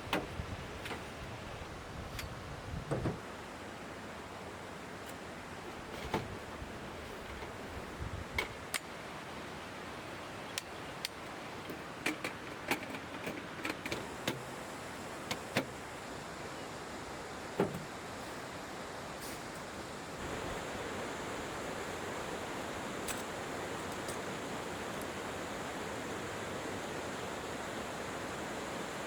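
Steady rushing outdoor noise like running water, with scattered light clicks and knocks over the first eighteen seconds or so. The rushing noise gets a little louder about twenty seconds in.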